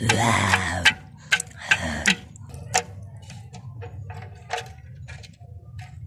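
Small plastic toy animal figures clacking and knocking against each other and a hard floor as they are pushed together, in irregular clicks that thin out after about three seconds. A voice sounds briefly in the first second.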